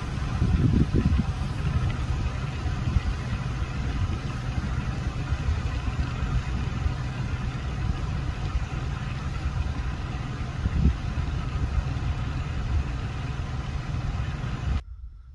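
Steady low rumble of an idling vehicle engine, cutting off suddenly near the end.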